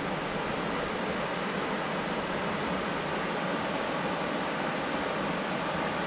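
Small creek waterfall rushing steadily.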